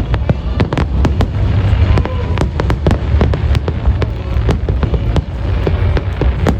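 Aerial fireworks display: rapid, irregular sharp cracks and pops, several a second, over a continuous low rumble of shell bursts.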